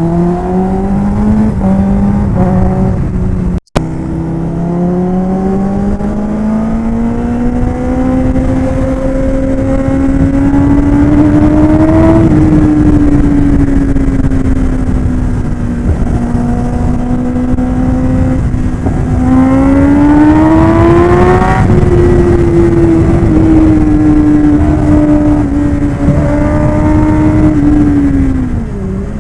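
Kawasaki ZX-10R's inline-four engine pulling hard at highway speed over steady wind and road noise. Its pitch climbs for several seconds, eases back, climbs again and falls near the end as the rider opens and rolls off the throttle. The sound drops out for a moment about four seconds in.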